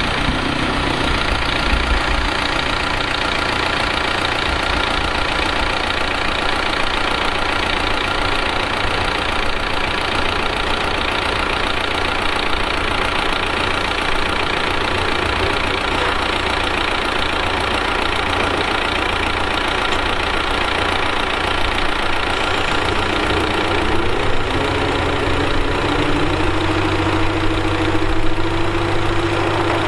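Heavy diesel engine of earthmoving machinery running steadily; about three-quarters of the way through its note rises a little and stays higher.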